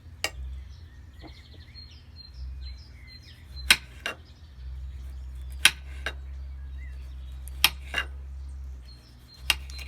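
Knife cutting tomatoes, with sharp knocks as the blade comes through, mostly in pairs about every two seconds. Birds chirp faintly.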